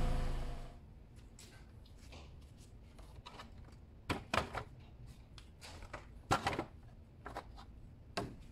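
A car engine running fades out within the first second. Then comes a quiet stretch broken by scattered sharp clicks and light knocks, a few in quick pairs, the loudest a little past halfway.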